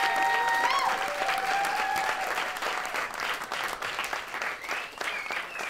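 Audience applauding, the clapping gradually tapering off.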